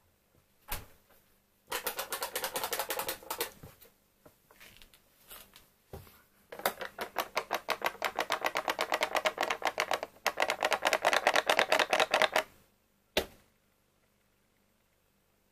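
Rapid, even clicking at about nine clicks a second, in a short run and then a longer one. A few single knocks sit between and after the runs, the last about thirteen seconds in, as plastic dessert cups are handled and set down on a table.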